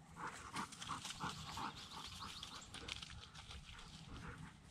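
A bird dog panting hard and fast, about three breaths a second, with some rustling.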